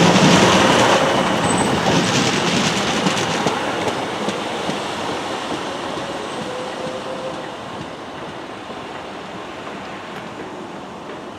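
A train running past on the rails and fading away, its wheel and rail noise dying down steadily, with a few faint squeals from the wheels.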